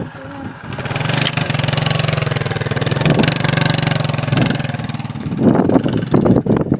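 Small motorcycle engine running steadily close by as the bike rides off, dropping away about five seconds in.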